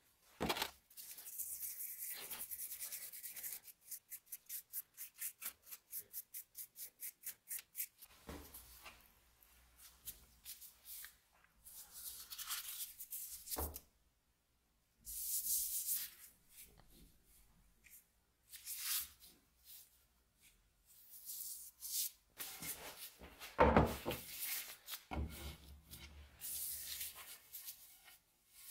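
Hands rubbing and wiping an oiled steel axe head in bursts. First comes a stretch of steady rubbing, then quick back-and-forth strokes about three a second, then scattered rubs with a couple of handling knocks.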